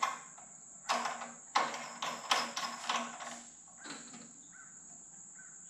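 A run of short knocks and clatter from the oil filler cap being fitted back onto a VW air-cooled engine. Faint crow caws repeat near the end.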